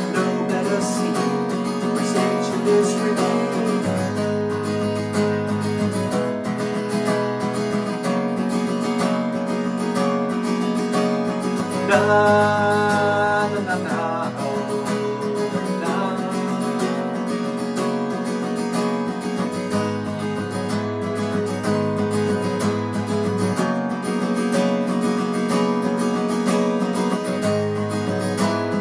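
Taylor steel-string acoustic guitar strummed and picked through an instrumental passage of a folk song, with a louder, brighter stretch about twelve seconds in.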